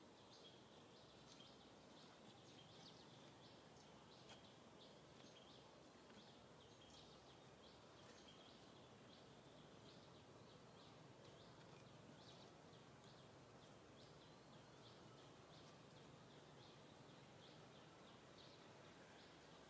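Near silence: faint outdoor ambience with quick, faint high chirps repeating a few times a second throughout.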